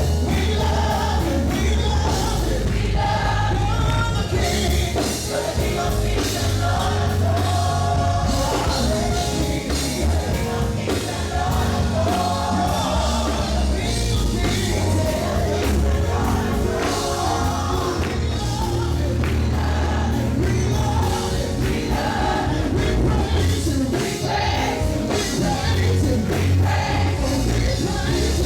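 Live gospel music: a band with strong bass and voices singing together, continuous and steady in level.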